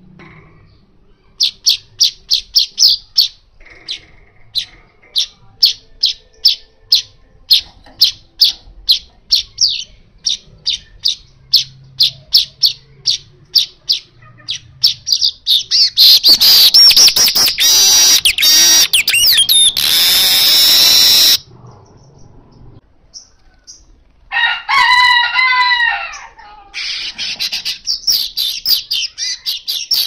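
Male golden-headed weaver (manyar kepala emas) singing: a long run of short sharp chips, about two to three a second, that quickens into a loud buzzy wheezing trill lasting about five seconds. After a pause comes a short, lower warbled phrase, then another buzzy wheeze near the end.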